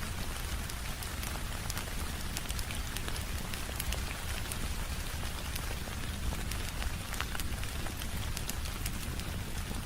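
Steady rain, an even hiss with a low rumble beneath, sprinkled throughout with scattered sharp clicks of drops.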